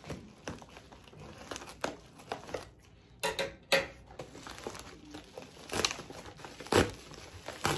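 Plastic poly mailer bag crinkling and rustling as it is cut with scissors and pulled open by hand. There are irregular crackles throughout, with several louder ones in the second half.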